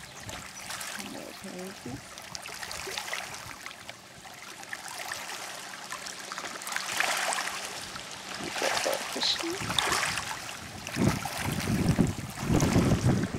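Small waves from the St. Lawrence River lapping and washing against a rocky shoreline in an irregular, noisy wash that gets louder and heavier in the last few seconds.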